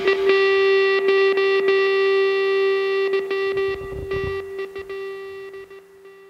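Rock soundtrack ending on one held guitar note that rings on and slowly fades out.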